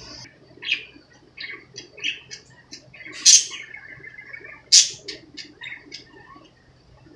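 Pet budgerigars chirping in quick, short calls, with two loud squawks about a second and a half apart near the middle.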